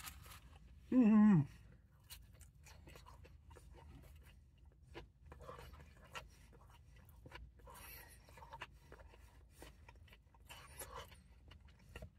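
A man chewing a crispy breaded chicken tender: faint crunches and wet mouth clicks scattered throughout. About a second in comes one short hum of enjoyment that slides down in pitch.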